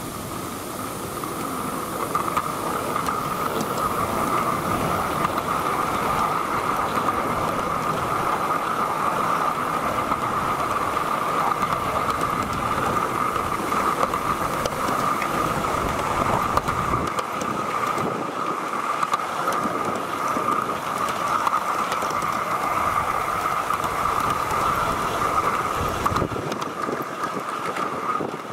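Wheels of a Gauge 1 model steam train's wagons rolling along the track, heard from on board: a steady rolling rumble with a constant ringing note running through it. It picks up about two seconds in as the train gets under way.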